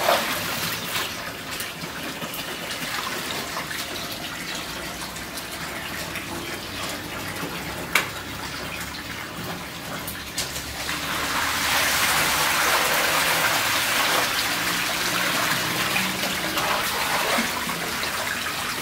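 Water running from a hose into large metal cooking pots, splashing as food is washed by hand in them. The pouring grows louder about eleven seconds in, and there is one sharp knock about eight seconds in.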